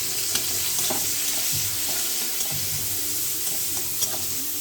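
Chopped onion sizzling and crackling in hot oil in a kadai, with the spatula stirring and knocking against the pan about once a second.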